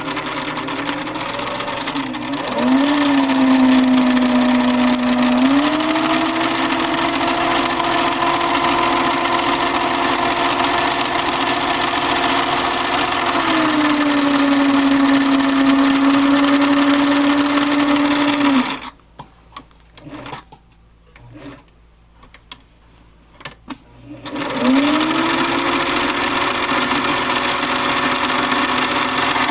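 Singer Stylist 457 sewing machine running as it stitches through two layers of flannel, its motor hum shifting in speed a few times. It stops about two-thirds of the way through, leaving only a few light clicks, then starts again with a rising whine and settles to a steady run.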